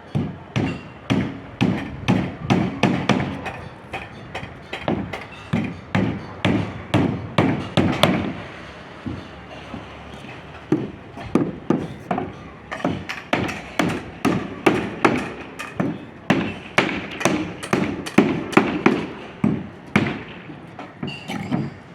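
Repeated knocking blows, about two to three a second, in two long runs with a pause of a few seconds between them.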